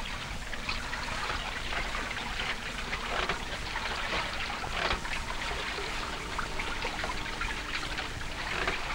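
Sea water splashing and lapping, an irregular patter of small splashes over a steady wash.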